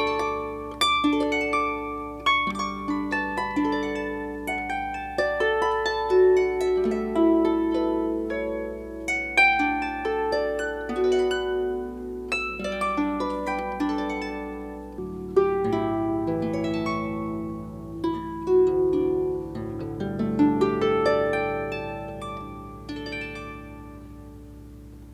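Slow, gentle music on a plucked string instrument: single notes and chords, each ringing on and dying away.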